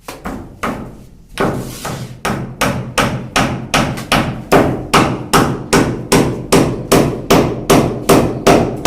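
Steady rhythmic hammering, about two to three sharp blows a second. The blows become louder and evenly paced about a second and a half in.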